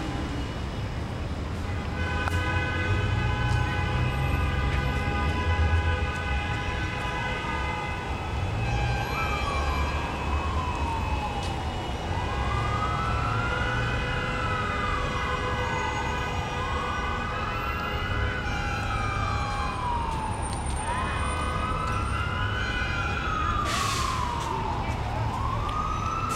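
Emergency vehicle siren wailing, its pitch rising and falling about every four seconds, coming in about eight seconds in, over a steady low rumble.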